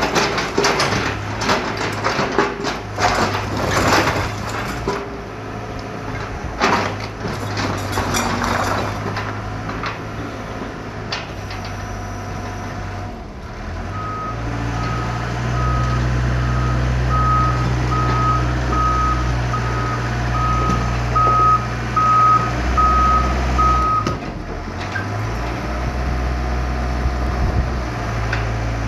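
Doosan excavator's diesel engine running while its bucket breaks and shifts brick and concrete rubble, with repeated crashing and clattering through the first several seconds. About halfway, the engine note grows louder and a warning alarm beeps about once a second for some ten seconds.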